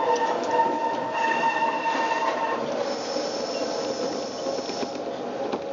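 Metre-gauge electric train running through a curve, heard from inside: the wheels squeal against the rails over the rumble of the running gear, and a thinner, higher squeal joins about three seconds in and drops away near the end.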